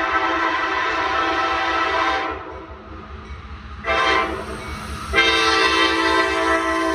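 Norfolk Southern locomotive air horn sounding a multi-note chord in a horn show. A long blast cuts off about two seconds in, a short blast comes about four seconds in, and another long blast starts about five seconds in.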